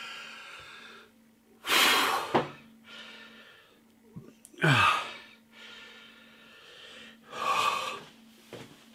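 A man gasping and breathing hard from the burn of ghost pepper chilli: three loud, sharp gasps about three seconds apart, with heavier breathing between them.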